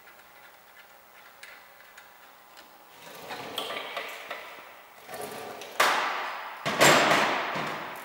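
Workshop hand tools and small metal parts being handled: a few light clicks at first, then rustling and two louder clatters, the second longer, as parts are put down and a tool is picked up.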